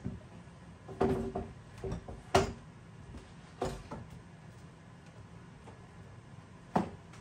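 A wooden board being handled on a mitre saw's metal table and extension: a string of knocks and clunks as it is set down and shifted, the loudest about two and a half seconds in and a last one near the end.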